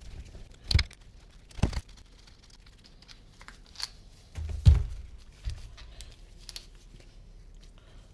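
Hands working on a split motorcycle brake caliper at a bench: a few separate knocks and clicks as the metal caliper parts are moved and set down, the loudest about halfway through, with a cloth rag rustling between them.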